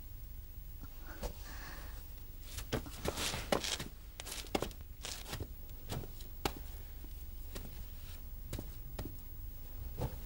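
Soft, irregular taps and cloth rustling, about a dozen light strokes spread unevenly, over a low steady hum.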